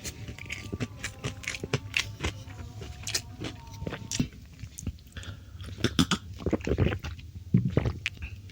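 Close-up chewing and crunching of food in the mouth, a run of irregular wet clicks and crackles, busier and louder in the second half.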